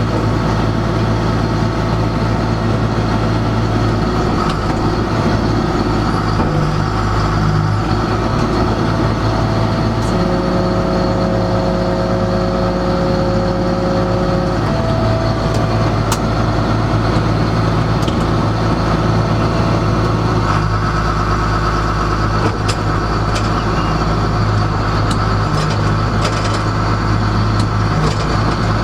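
John Deere 690C excavator's diesel engine running steadily, with a higher whine that comes in and shifts pitch partway through.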